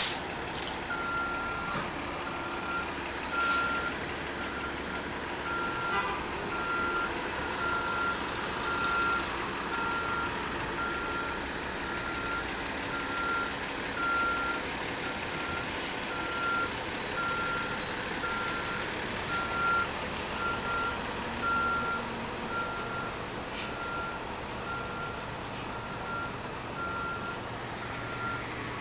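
A vehicle reversing alarm beeping at an even, unbroken pace, over the running of city buses. A few short, sharp noises from the buses stand out now and then.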